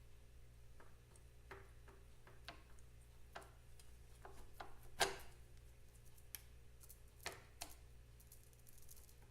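Scattered, irregular light clicks and taps, with one louder knock about five seconds in, over a faint steady low hum.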